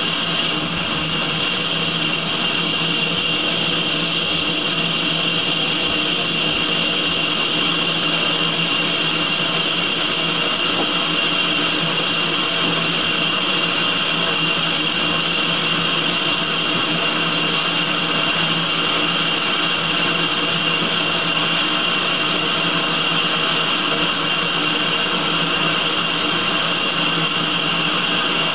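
Steam hissing steadily from the Manning Wardle saddle-tank steam locomotive 'Sir Berkeley' while it stands with steam up, with a constant high whistling tone over the hiss and no exhaust beats.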